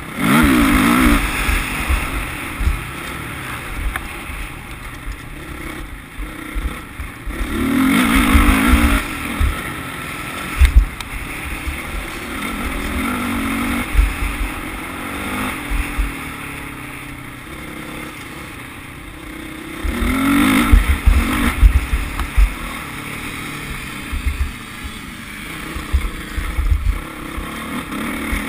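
Motocross bike engine heard from a camera mounted on the bike, revving up in loud surges and dropping back as it is ridden round a dirt track, with wind rumbling on the microphone and a few sharp knocks from the bumps.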